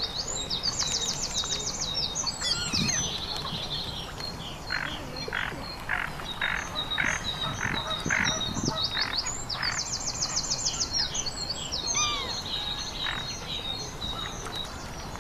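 Songbirds singing, twice breaking into a fast high trill, with a run of about eight evenly spaced croaking calls in the middle.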